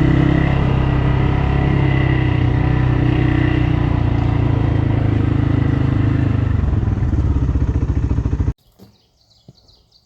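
ATV engine running at steady speed under way on a trail, a deep even drone with a steady pitch. It cuts off suddenly about eight and a half seconds in, leaving only a few faint ticks.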